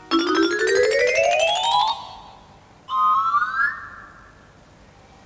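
Whistle-like rising glides used as a comic sound effect, in the manner of a slide whistle. A long one climbs for about two seconds with a rapid flutter, then a shorter, higher one rises about three seconds in.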